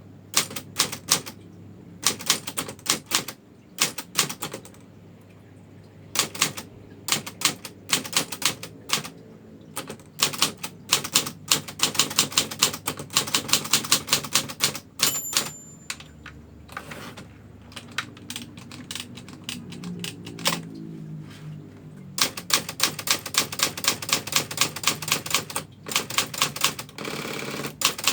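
Brother manual typewriter being typed on, type bars striking in quick runs of clicks broken by short pauses. The end-of-line bell dings once about halfway through.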